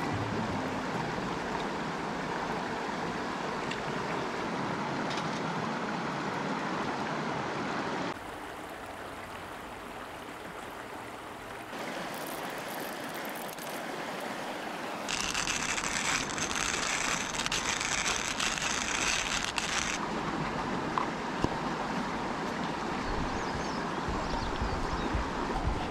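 A shallow stream running over rocks, with cuts between takes. In the middle come a few seconds of gritty crunching from a hand-cranked coffee mill grinding beans.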